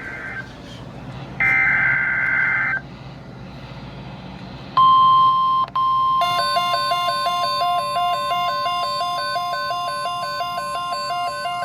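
Emergency Alert System header on weather radio: two short bursts of digital data, then from about five seconds in a steady high alert tone. About a second later a second alarm tone joins it, alternating rapidly between two pitches. The alert announces a severe thunderstorm watch from the National Weather Service.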